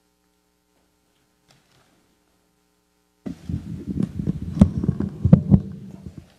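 Faint mains hum, then about three seconds in, loud microphone handling noise: a run of knocks, clicks and low thuds as a microphone is taken out of its stand clip and held in the hand.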